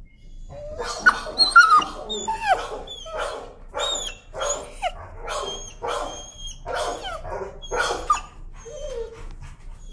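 A timid dog screaming and yelping in protest at having its neck handled, a run of a dozen or so sharp cries at about two a second. It ends in a fainter whine near the end.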